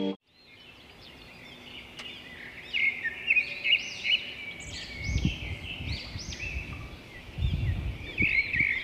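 Many birds chirping and calling together, with quick repeated arching notes that overlap. A low rumble comes about five seconds in and again near the end.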